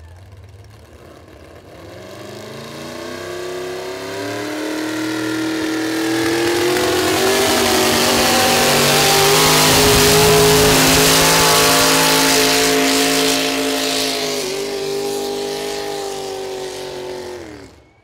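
Gas-engine pulling truck at full throttle, hauling the weight sled down the track. The engine note climbs over the first several seconds and holds high and loud, with a brief dip about two-thirds in. It then falls off and cuts out abruptly near the end.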